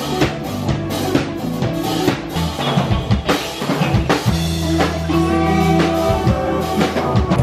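A rock band playing: a drum kit keeps a steady beat of kick, snare and cymbal hits under guitars, with sustained low bass notes coming in about halfway through.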